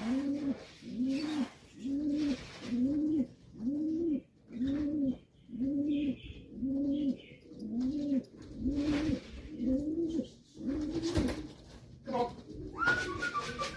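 Racing pigeon cooing: a steady run of about a dozen low, arched coos, roughly one a second, followed near the end by a brief higher squeaky call.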